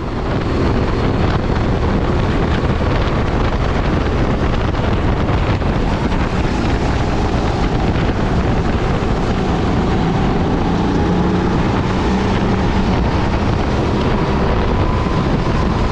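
Onboard sound of a Sodi rental kart at racing speed: the engine running hard under load, largely buried in steady wind noise buffeting the microphone.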